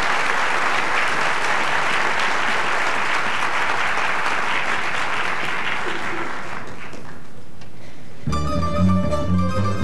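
Audience applauding, fading out about seven seconds in. About eight seconds in, a tamburica ensemble starts playing, plucked strings carrying a melody over a bass line.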